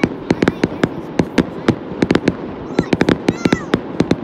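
Aerial fireworks bursting in quick, irregular bangs and crackles, several a second. Two short high-pitched squeals sound about three seconds in.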